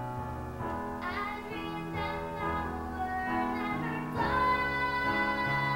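A teenage girl singing solo over sustained instrumental accompaniment, her voice wavering and gliding between held notes.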